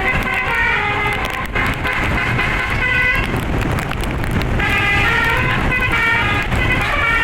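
Bus telolet horn, a bank of air horns driven by a DAV tune module, playing a melody of stepping notes in short phrases with brief breaks, over a steady low engine and road rumble.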